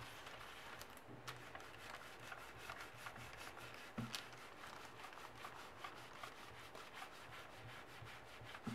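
An iron sliding back and forth over baking paper on Hama beads, a faint steady rubbing, with a couple of light knocks. It is the stage of ironing the plastic beads so that they melt and fuse together.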